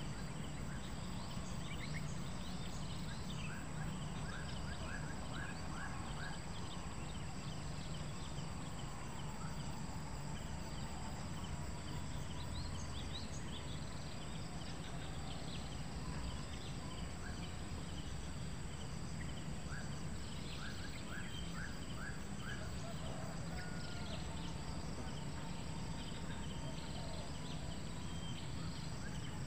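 Rural outdoor ambience: a steady high insect drone, with two short runs of quick ticking chirps.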